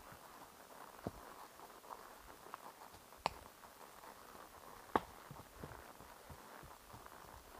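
Horse walking slowly under a rider: quiet, scattered hoof thuds and small clicks of tack, with a few sharper clicks.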